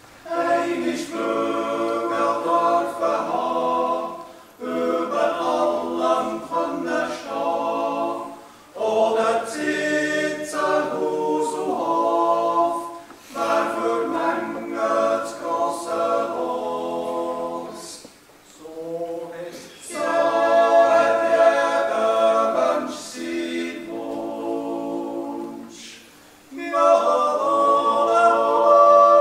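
Six-man Swiss yodel choir singing a yodel song a cappella, several men's voices together in harmony, in long phrases broken by short pauses.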